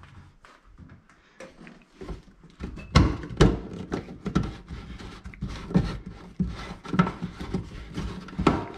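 Irregular knocks and rattles of hands working under a stainless steel kitchen sink, lining it up and handling its plastic waste fitting. It is faint at first, and the knocks come from about three seconds in, loudest around then.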